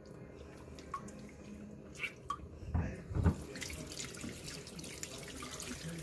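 Water sloshing and running in a stainless steel sink as hands rub and squeeze a raw octopus in a bowl of water, with a few soft knocks early on. About halfway through, a steady hiss of running water sets in.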